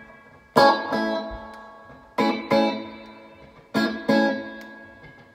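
Fender American Standard Telecaster with Joe Barden pickups, strummed in chords: three pairs of quick strums about a second and a half apart, each chord left to ring and fade before the next.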